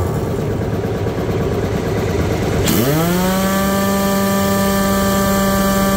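Heavy 1-inch pneumatic impact wrench (Elephant IW04) running free: its whine falls and dies away at the start, leaving a low rumble. About two and a half seconds in, air hisses as the trigger is pulled again, and the whine rises quickly and holds a steady pitch.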